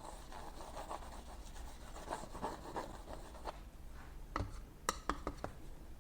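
Painting knife scraping and rubbing oil paint across a stretched canvas, with several sharp taps and clicks in the second half.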